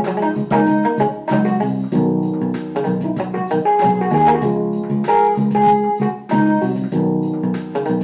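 Background instrumental music: held keyboard-like chords changing every second or so over a steady beat.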